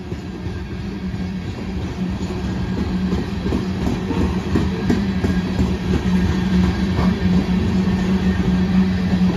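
Coal train rolling past at close range: a steady rumble with a low hum, scattered clicks of wheels over the rails, growing slowly louder.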